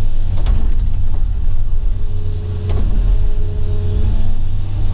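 Excavator's diesel engine running steadily at working speed, a deep drone, with a couple of faint clicks.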